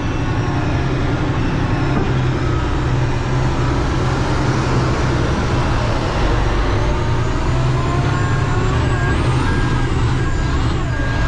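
Kenworth T800 dump truck's Cummins X15 diesel engine running steadily as the truck reverses slowly, heard from inside the cab. A backup alarm starts beeping evenly about eight seconds in.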